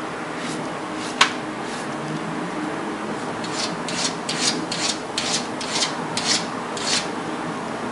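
A cat scraping its front paws against the hard floor and wall beside its food bowl in a run of short strokes, two or three a second. This is the cat's ritual pawing before it eats. There is one sharp click about a second in, over a steady hiss.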